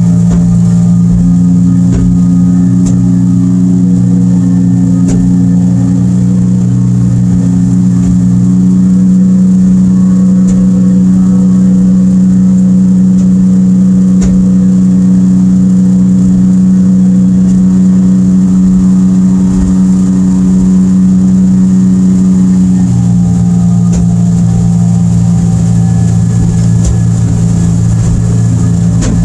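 Evinrude E-TEC 115 two-stroke outboard running steadily at planing speed, with its note easing slightly lower late on.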